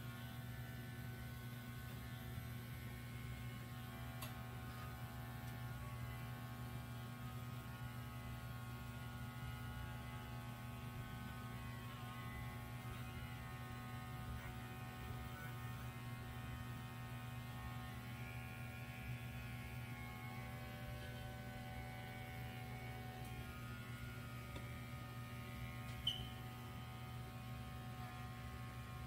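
Cordless electric pet clipper running with a steady buzz while trimming the fur on a small dog's paws and face. One short click near the end.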